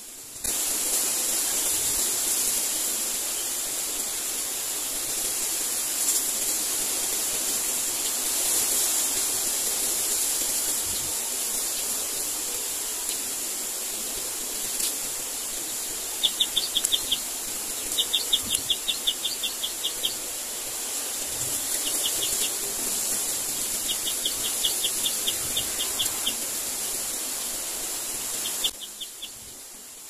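Steady high-pitched outdoor hiss, with repeated short bursts of rapid ticking calls, about ten ticks a second, from about halfway through. The hiss starts suddenly and cuts off abruptly near the end.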